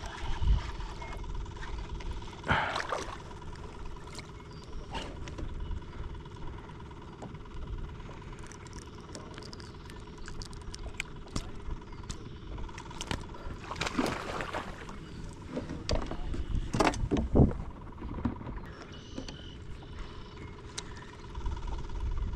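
Clicks, knocks and rustling of fishing gear and a fish being handled aboard a kayak, with low wind rumble on the microphone. A few louder noisy bursts of about a second each stand out, the biggest about two-thirds of the way through, over a faint steady high tone.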